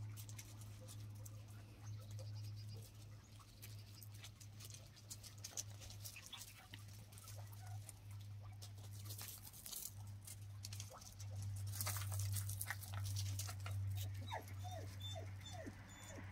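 Yorkshire terrier puppies scampering on gravel: scattered clicks and crunches of paws and stones. Near the end come a few short high yips or whimpers. A steady low hum runs underneath throughout.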